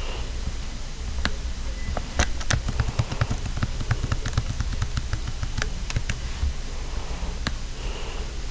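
Irregular sharp clicks from a computer pointing device being worked, over a steady hiss and low hum. The clicks come in a cluster from about two to four seconds in and again around six to seven and a half seconds in.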